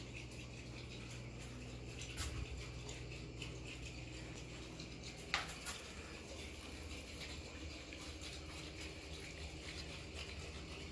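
Water gurgling and sloshing under the slab at the foot of a radon mitigation system's PVC suction pipe: an irregular, crackly bubbling, pulled up by the radon fan's suction from a very high water table. Two sharper clicks stand out, about two seconds in and about five seconds in.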